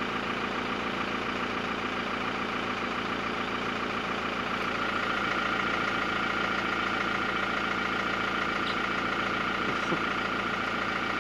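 Toyota Hilux pickup's engine idling steadily.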